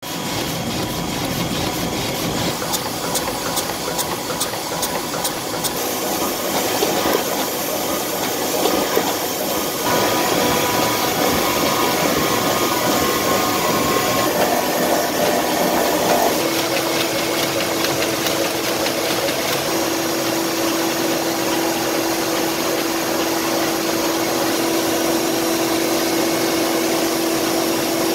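Sheet-fed offset printing press running at production speed: a steady mechanical hum and hiss. A fast regular ticking stops about six seconds in, and a steady tone joins about sixteen seconds in.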